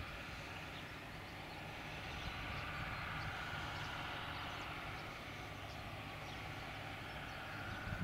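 John Deere tractor's diesel engine running steadily at a distance while it pulls a mounted fertiliser spreader across the field, getting a little louder about midway.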